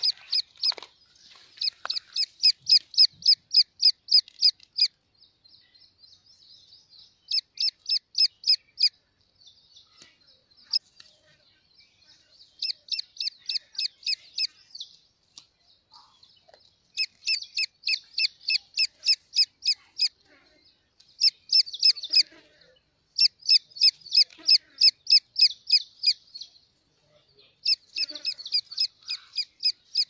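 Grey francolin chick peeping: bouts of rapid, high-pitched peeps, about four to five a second, each bout lasting a few seconds with short pauses between.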